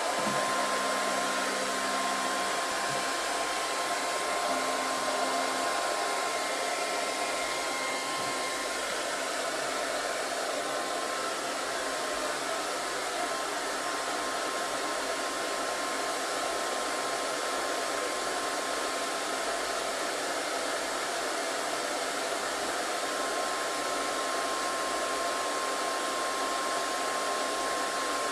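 Electric motor-driven air blower running steadily: an even rush of air with a steady high motor whine.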